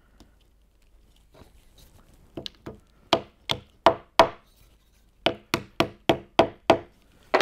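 Wooden mallet striking a glued plywood plug to drive it into a drilled hole in a hardwood miter joint. A few light taps, then four sharp strikes, a short pause, and six more, about three a second.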